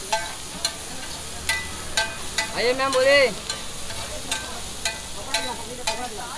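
A metal spatula strikes and scrapes a large flat griddle about twice a second while stir-frying noodles and vegetables over steady sizzling oil, and each strike rings briefly. Just before the middle, a person's voice gives a short, loud call that rises and falls in pitch.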